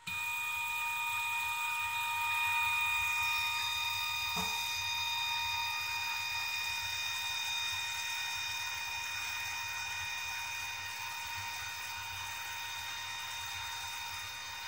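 Extruder stepper motor of a Cerberus Pup 170 delta 3D printer driving the hobbed gear, a steady whine made of several high pitches, starting abruptly and stopping after about fifteen seconds. It is feeding a measured 100 mm of filament at 400 mm/min to calibrate the extruder's steps per millimetre.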